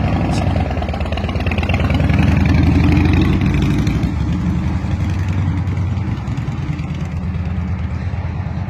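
An engine idling with a fast, low pulse, swelling about two seconds in and easing back down toward the end.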